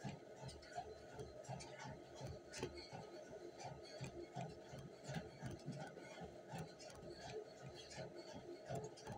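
Running footfalls striking a treadmill belt in an even beat of about two to three steps a second, with a faint steady tone underneath.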